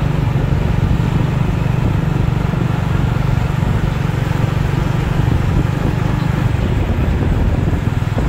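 Motorcycle taxi engine running steadily while riding, heard from the pillion seat; its hum weakens about six and a half seconds in.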